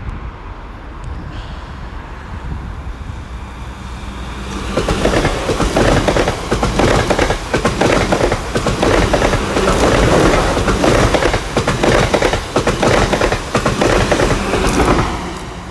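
Two coupled South Western Railway Class 444 Desiro electric multiple units approaching and passing close at speed: a low rumble for the first few seconds, then about ten seconds of loud, dense clattering from the wheels over the track, easing off near the end.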